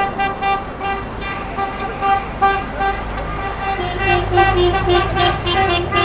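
Vehicle horn tooting in many quick short blasts over an engine's low rumble, which grows louder in the second half.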